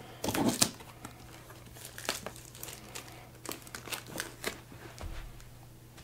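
Plastic shrink-wrap on a cardboard box crinkling and crackling as hands handle the box, loudest in a dense burst about half a second in, then in scattered crackles that stop after a few seconds.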